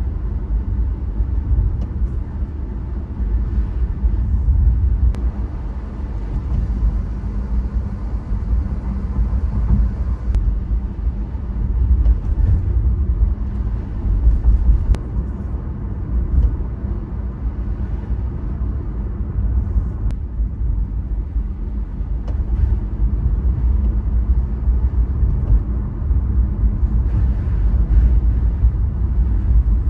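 Honda ZR-V on the move, heard from inside the cabin: steady low road rumble, with an occasional light tapping knock from the rear of the car. The tapping is an abnormal noise that the owner puts down to poor fit of the car's parts.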